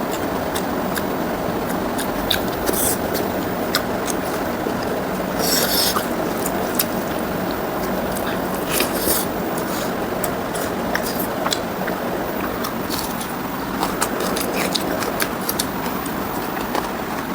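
Close-miked eating sounds of a person chewing pork ribs with rice and gravy: irregular short clicks and smacks of chewing, over a steady background noise.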